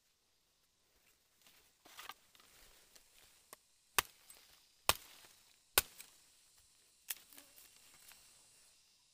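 A machete chopping at a green wooden stick held in the hand: three sharp chops about a second apart, then a weaker fourth, after some rustling of leaves and handling.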